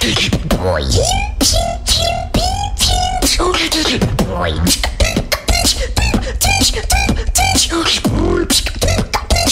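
Solo vocal beatbox routine performed into a handheld microphone. A steady low bass runs under rapid sharp clicks and snare hits, with short pitched vocal sounds that slide downward.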